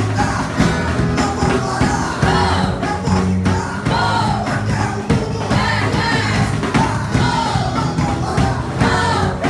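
Rock-style band music with a lead singer: a sung melody over a steady beat and bass.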